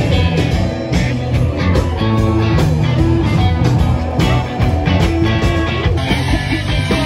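Rock music led by electric guitar, with a steady beat.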